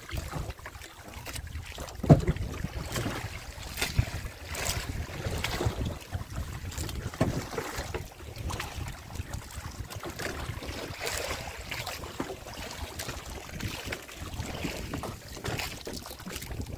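Wire-mesh fish trap being hauled aboard a small boat: irregular knocks and rattles of the trap frame against the boat's rails, the loudest about two seconds in, with wind on the microphone.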